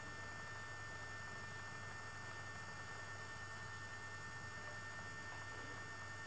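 Steady electrical hum with a thin, constant high whine over it, unchanging throughout. There is no other sound.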